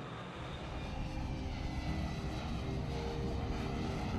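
F-35 fighter jet flying by, its engine roar growing louder about a second in.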